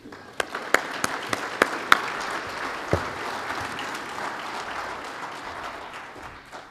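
Audience applauding, with a few loud single claps standing out close by in the first three seconds. The applause dies away near the end.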